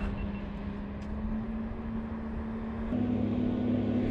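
Steady engine hum that rises slightly in pitch and grows louder about three seconds in.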